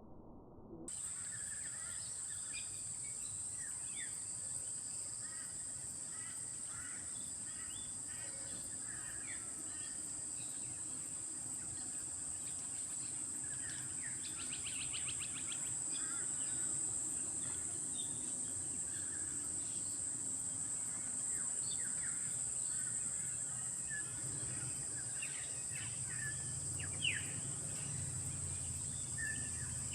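Steady high-pitched insect drone with many short bird chirps and calls scattered over it, including a brief rapid trill about halfway through; a low rumble joins in over the last few seconds.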